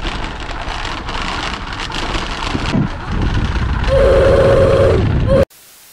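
Road bike rolling over cobblestone paving, with a loud, rough rattle and wind noise on the camera's microphone. A steady tone is held for about a second near the end before the sound cuts off suddenly.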